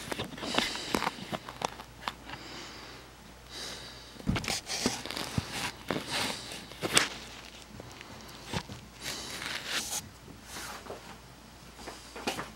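Footsteps and rustling handling noise with irregular clicks and knocks as a handheld camera is carried and repositioned; the sharpest knock comes about seven seconds in.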